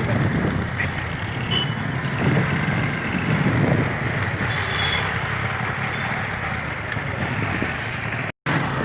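Steady engine and road noise of a moving vehicle, heard from on board, cutting out for a split second near the end.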